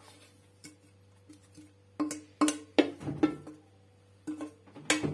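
A wooden spoon scrapes and knocks grated carrot and apple out of a metal mixing bowl into a frying pan. Each knock makes the bowl ring briefly at the same pitch. The loudest knocks come about two seconds in and again near the end.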